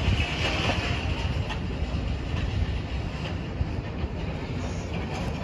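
Wind buffeting the microphone: an uneven, gusty low rumble over a steady outdoor hiss.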